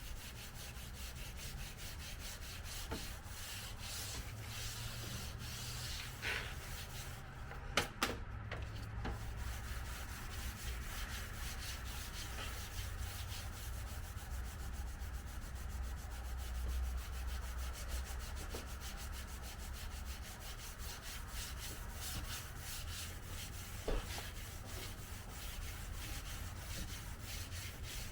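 Sandpaper rubbing back and forth over a car's painted body panel in quick, steady strokes, flattening the orange peel in the paint. A few sharp knocks come about eight seconds in and once more later.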